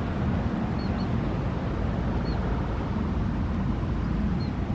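Boeing 777 jet airliner taxiing on the runway: a steady low rumble from its engines, with a few faint, short high chirps over it.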